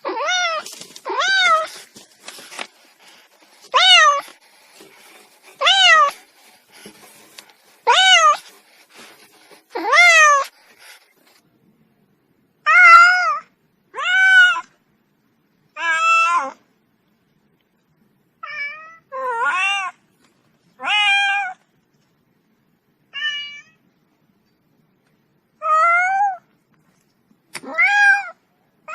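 Domestic cat meowing repeatedly: over a dozen short meows, each rising then falling in pitch, a second or two apart, with longer gaps in the second half.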